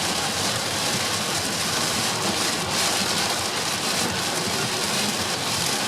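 Heavy rain hitting a moving car, mixed with the hiss of tyres on a wet motorway, heard from inside the car as a steady, even rush.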